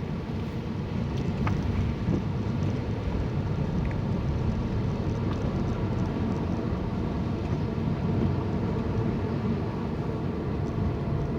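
Steady low road and engine noise heard from inside a moving car's cabin.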